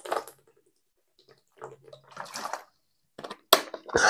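Water sloshing in a water bottle in a few short bursts, with a sharp knock about three and a half seconds in.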